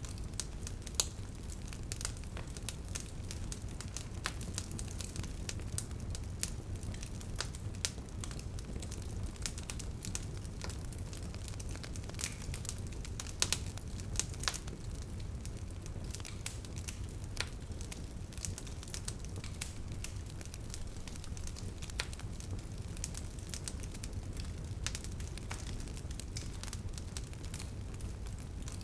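Wood fire crackling, with irregular sharp crackles scattered over a steady low rumble of burning.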